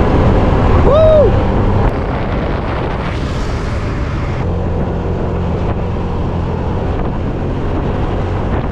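Motor scooter's engine running steadily while riding along, with heavy wind noise on the microphone. A single shout of 'woo' about a second in.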